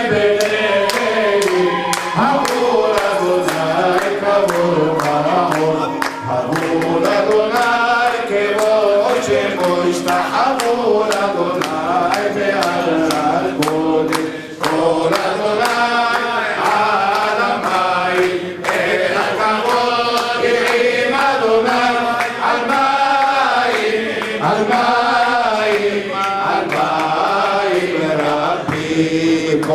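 Group of men singing a chant together, with a quick rhythm of sharp beats and a long held low note through the middle.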